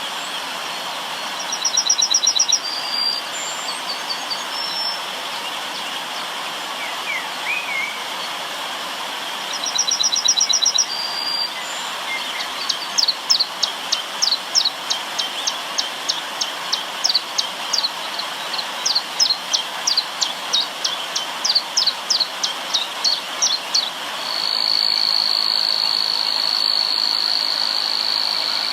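River water running steadily under birdsong: two fast high trills early on, then a long run of sharp high chirps repeated about three times a second. Near the end a steady high insect buzz, like a cricket, starts and holds.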